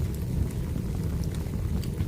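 Wood fire burning: a steady low rumble of the flames with a few sharp crackles and pops from the burning logs.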